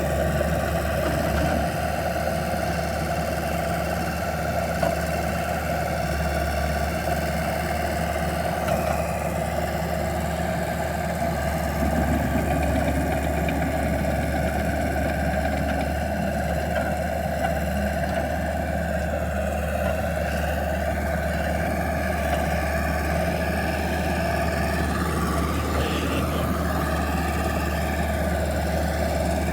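Engine of a 2003 Rayco Super Crawler C87L tracked skid steer running steadily at an even speed.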